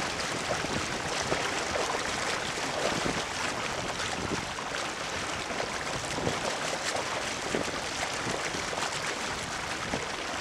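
Water rushing and splashing along the hull and wake of a Mud Hen sailboat moving under sail, a steady hiss with small splashes here and there.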